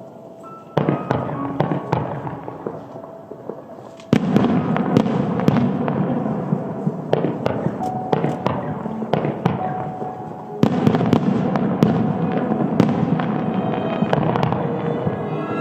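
Starmine fireworks bursting in a senrin (thousand-ring) display. Loud bursts about a second in, at four seconds and near ten and a half seconds are each followed by a long dense crackling of many small shell bursts.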